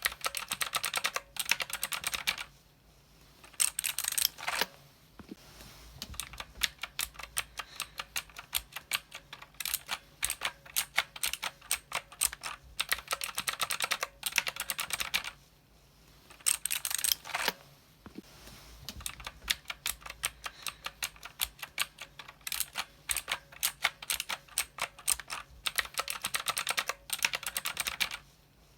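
Mechanical keyboard typing: rapid, continuous runs of key clicks, broken by a few brief pauses.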